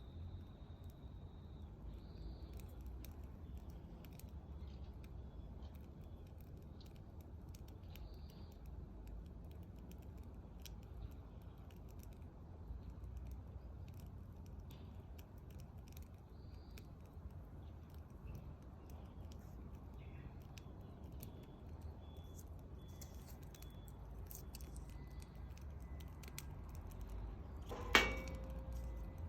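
Faint, scattered crackling of a wood fire over a steady low rumble, with one sharp knock and a short ringing tone near the end.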